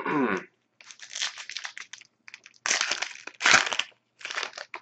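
Plastic trading-card pack wrapper crinkling and being torn open, in a run of irregular rustling bursts.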